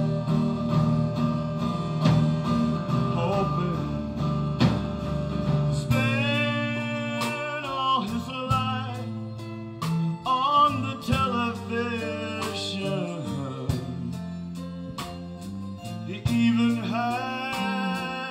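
Live band playing a slow song: strummed acoustic guitar with electric bass, drums and keyboard, and a man singing over it from about six seconds in.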